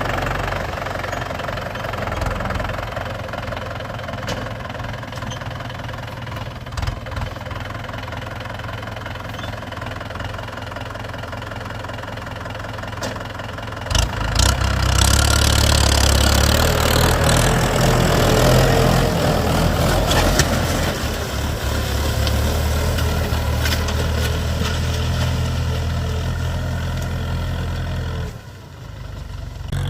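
Tractor diesel engine running through a modified silencer. It gets louder about halfway through and stays louder until a brief drop shortly before the end.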